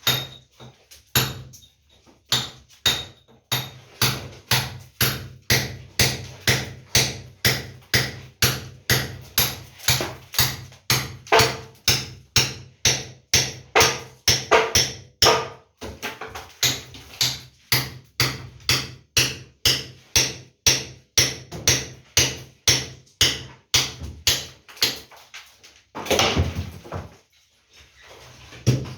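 Hammer blows on a wall during repair work, struck steadily about twice a second, each with a sharp crack and a short ring. The blows stop near the end, followed by a brief rushing noise.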